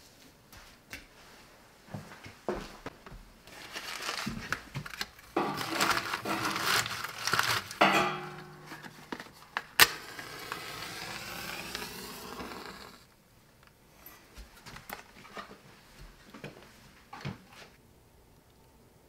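Paper crumpling and rustling, then a match struck with a sharp scratch about ten seconds in, flaring with a steady hiss for about three seconds. Faint scattered crackles follow as the paper kindling catches under the firewood.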